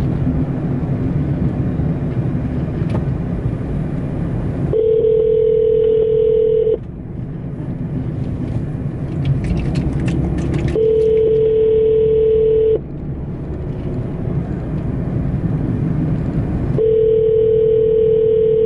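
Telephone ringback tone of an outgoing call ringing unanswered: a steady two-second tone three times, about six seconds apart, over the low rumble of the car cabin.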